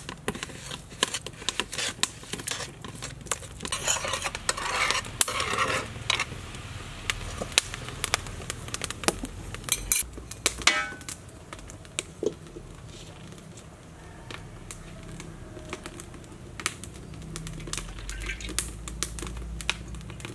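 Cooking utensils and lids knocking and clinking against metal pans and a wok, in scattered sharp clicks, with a denser, rougher stretch about four seconds in.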